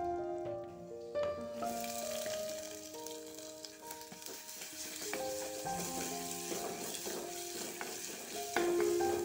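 Sliced onions going into hot oil in a clay pot, starting to sizzle about two seconds in, then frying steadily while a wooden spatula stirs them, with scattered scraping clicks. Light background music with a plucked melody plays throughout.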